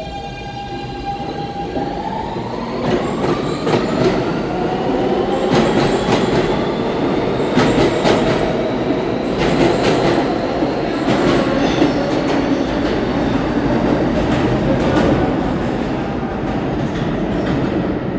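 R160 subway train accelerating out of an underground station. Its propulsion tone starts rising in pitch about two seconds in, and the wheels clack rapidly over the rail joints as it gathers speed. The sound grows louder toward the middle and eases slightly near the end as the train leaves.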